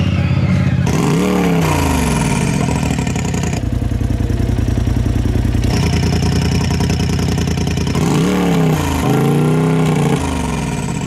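Turbocharged side-by-side engine with an electric exhaust cutout running at idle and revved twice, about a second in and again about eight seconds in. A high falling whistle follows each rev.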